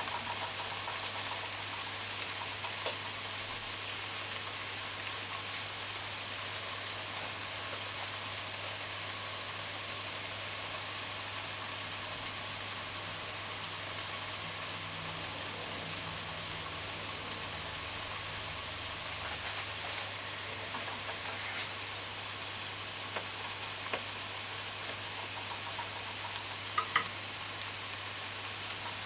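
Ripe plantain slices sizzling steadily in shallow hot oil in a metal pot, with a few sharp clicks near the end as a fork turns them against the pot.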